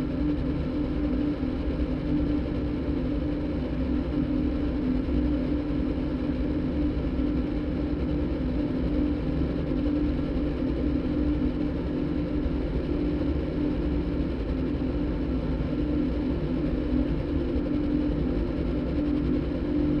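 Electronic soundtrack: a motorbike engine recording cross-synthesized with a đàn bầu (Vietnamese monochord) performance, giving a steady engine-like rumble with one strong held tone. It runs evenly with no breaks.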